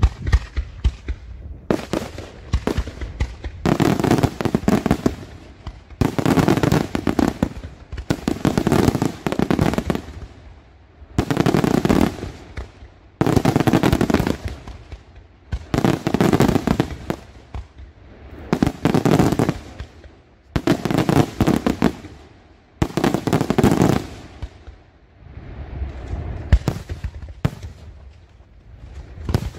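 Daytime fireworks: aerial shells bursting in a long series of volleys. Each volley is a rapid crackle of many sharp bangs lasting about a second, and a new one comes every two seconds or so.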